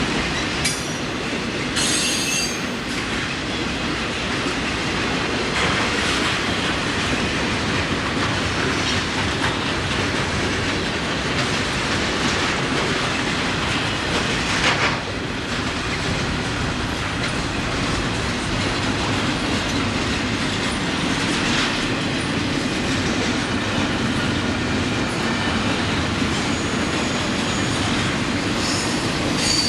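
Rail cars rolling past with a steady rumble and clatter of wheels on track. High-pitched wheel squeals come briefly about two seconds in and again near the end.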